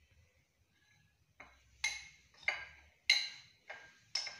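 A spoon clinking against a glass bowl while gram flour is spooned into it: about six sharp ringing taps, roughly one every half second, starting about a second and a half in.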